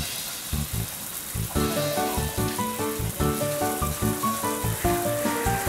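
Background music: a quick melody of short notes over a bass line, growing fuller about a second and a half in, laid over a steady hiss of water.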